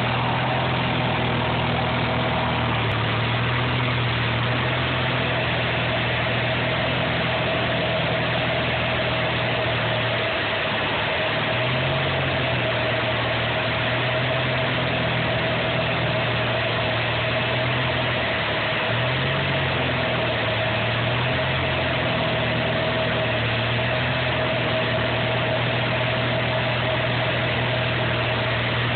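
Van's RV light aircraft's piston engine and propeller droning steadily inside the cockpit during formation aerobatic flight. The engine note shifts briefly twice, once about a third of the way in and again about two thirds in.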